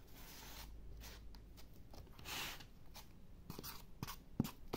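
A flat metal knife spreading and scraping wet, runny grout across a board, in faint soft scraping strokes, the strongest a little after two seconds in. A few light knocks come near the end.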